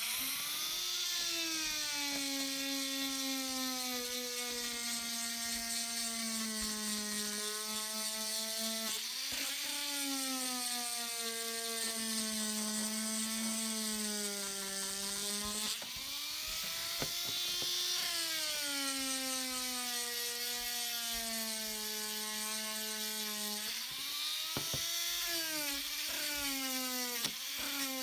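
Small electric polishing motor buffing a metal lighter with green compound, running with a steady whine. About three times the pitch jumps up and then slowly sags as the motor slows under the pressure of the work.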